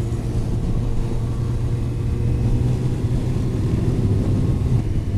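Yamaha FZ8 motorcycle's inline-four engine running at a steady cruise, picked up by a helmet-mounted camera mic.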